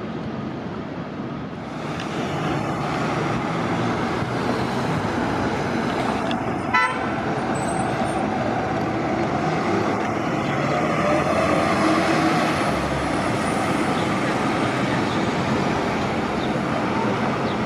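City transit buses running and pulling through a bus terminal, growing louder about two seconds in, with a brief sharp sound about seven seconds in and a faint rising whine around twelve seconds.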